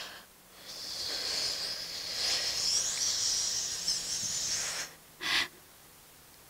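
A woman's long, breathy hiss through pursed lips, lasting about four seconds, imitating the rustle of wind hissing through marsh reeds. A short, sharp breath follows about five seconds in.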